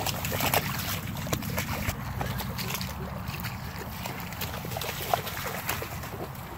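Splashing and rustling in shallow water and wet grass and reeds as a young long-haired Weimaraner wades out onto the bank: many small irregular splashes and rustles over a steady low rumble.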